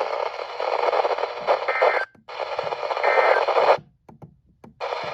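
Weather radio receiver hissing with static from a weak, noisy signal, a voice barely traceable beneath it. The static cuts out briefly about two seconds in and for about a second just before the end.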